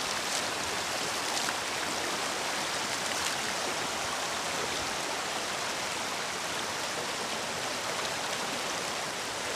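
Shallow river rapids rushing steadily over rocks, with a few small splashes from hands scooping the water about one and three seconds in.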